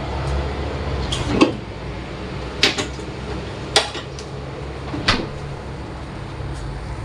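Sugared water at a rolling boil in a clay pot, a steady bubbling rumble and hiss. Four sharp clicks or knocks come about a second apart.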